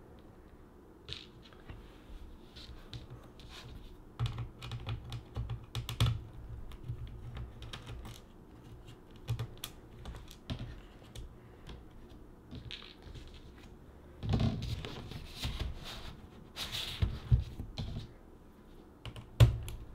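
Scattered small clicks and taps of a screwdriver and tiny screws as the screws holding a Lenovo U310 laptop's battery are taken out and set down on a tabletop. A longer rustling, scraping stretch comes about fourteen seconds in, with a few sharper knocks near the end.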